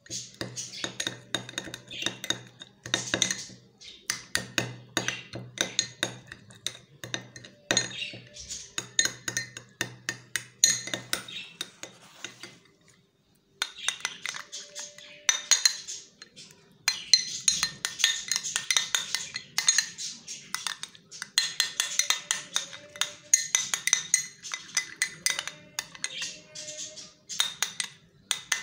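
Metal spoon stirring and scraping a thick face-pack paste in a glass bowl, with quick clinks and scrapes against the glass. The stirring stops for about a second midway, then goes on.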